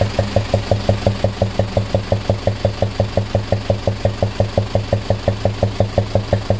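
Toyota 14B four-cylinder diesel idling with a loud, regular knock, about seven beats a second, heard loudest at the raised air-intake pipe. The knocking breathes out through the air cleaner and intake manifold; it came on suddenly while the lorry was working under load.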